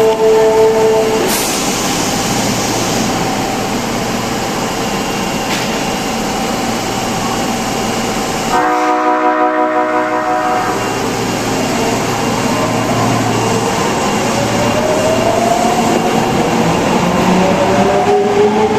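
Osaka Metro 22 series train 22615F, whose horn has an odd, abnormal tone. The horn is still sounding at the start and stops about a second in, and it sounds again for about two seconds around the middle. Over steady running noise, the train's motor whine then climbs slowly in pitch as it picks up speed.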